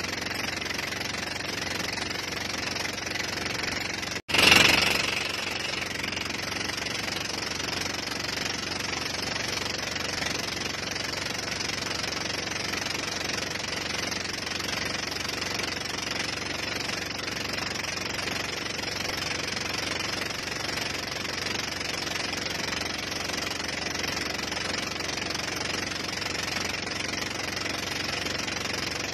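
Tow boat's engine running steadily at speed, with water rushing past the hull and wind on the microphone. About four seconds in, the sound cuts out for an instant and a short, loud rush of noise follows.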